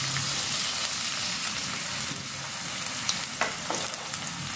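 Sliced onions sizzling in hot oil in a wok, just added and starting to fry, with a few sharper crackles about two and three and a half seconds in.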